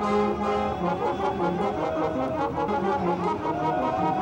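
Brass music, several horns playing a tune together.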